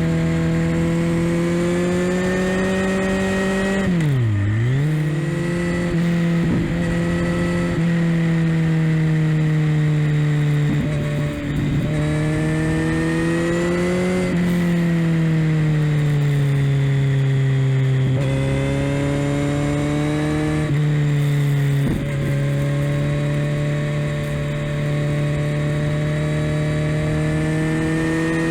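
Kawasaki Z900's inline-four running through a Leo Vince LV-10 slip-on exhaust under way, its engine pitch rising and falling gently with throttle. About four seconds in the pitch drops sharply and recovers, with several smaller pitch steps later on.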